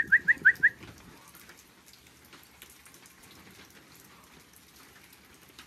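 A quick run of about six short, rising kissing squeaks, a person calling a dog, in the first second. Then steady rain pattering.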